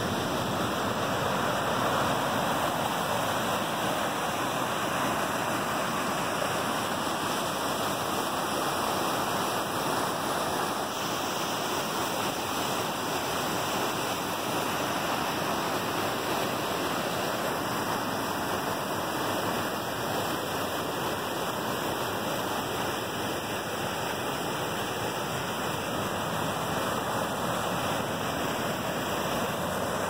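Floodwater rushing through a swollen, muddy creek and churning over rocks: a steady noise of white water.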